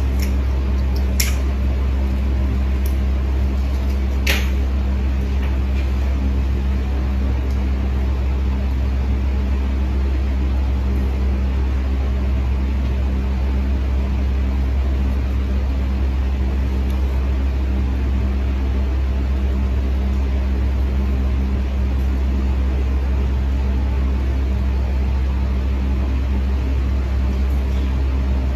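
Steady low hum of a running electric motor or fan, with two faint clicks in the first few seconds.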